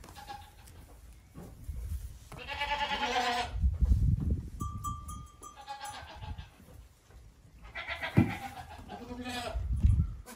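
Goat kids bleating three times in quavering calls, with heavy thuds and a sharp knock in between as they jump and land on the hay bale and the plank wall.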